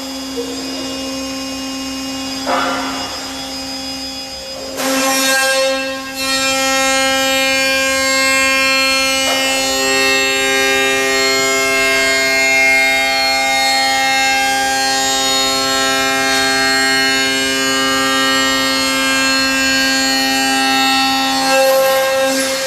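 A 5-axis CNC machining center milling a metal extruded panel, with steady whining tones from the spindle and cutter that shift as the cut goes on. There are a couple of louder bursts of cutting noise about two and five seconds in.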